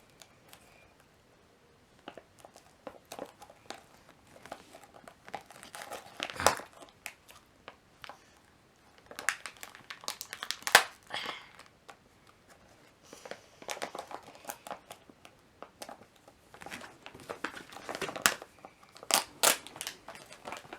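Plastic toy packet being handled and torn open, crinkling in irregular bursts with a few louder tearing crackles.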